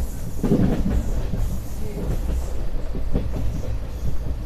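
Kanchanjunga Express passenger coach running along the track: a steady low rumble of wheels on rails with a few sharp clacks.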